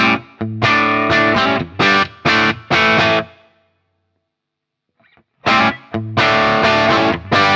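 Electric guitar played through a J.Rockett Jeff Archer, a Klon-type overdrive pedal: a phrase of short, stopped chords, about two seconds of silence, then a second phrase of chords.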